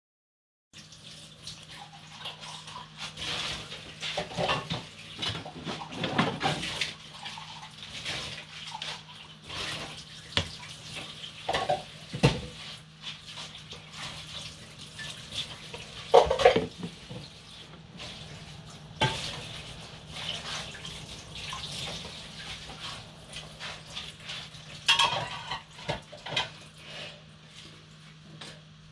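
Kitchen work sounds: irregular knocks and clinks of dishes and pots on a worktop, with a tap running at times, over a steady low hum.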